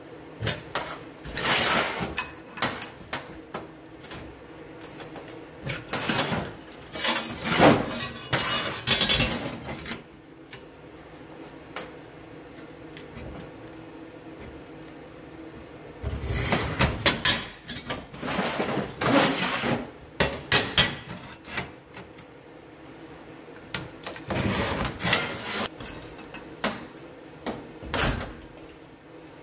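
A hand tool scraping and tapping on steel plates on a steel table: four spells of a few seconds each of scratchy metal-on-metal noise with short knocks, separated by quiet gaps.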